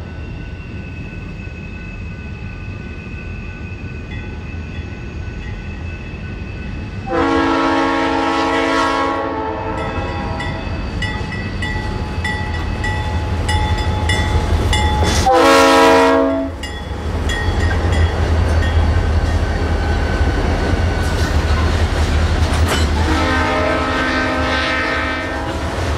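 BNSF diesel freight locomotive running with a steady low engine rumble, sounding its multi-tone air horn three times: a blast of about two seconds some seven seconds in, a short one of about a second midway, and a longer one near the end.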